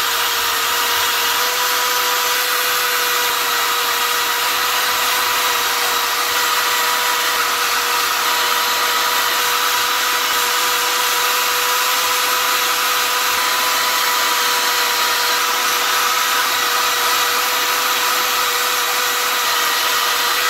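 Wire wheel brush on a power tool spinning against cast copper bars and coins held in a vise, wire-brushing the dark scale off the fresh castings. A steady motor whine at one pitch under a continuous scratchy hiss.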